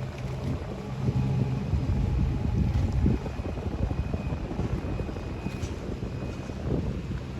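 Tugboat engine running steadily, a low, even hum.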